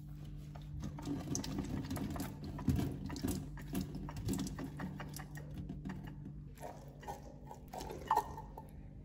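Liquid from a can of sweetcorn draining and pattering into a stainless-steel sink, the pressed-back metal lid clicking against the can, over a steady low hum. Near the end, the corn kernels tip into a stainless-steel bowl with a couple of sharper knocks.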